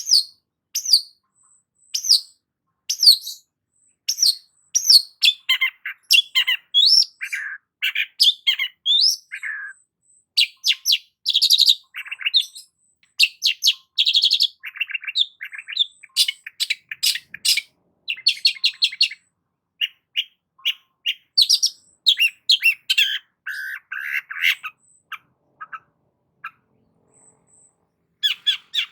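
Long-tailed shrike (cendet) singing a busy, varied song. It opens with short down-slurred whistles about once a second, then breaks into a quick medley of varied notes, harsh chattering and rapid trills.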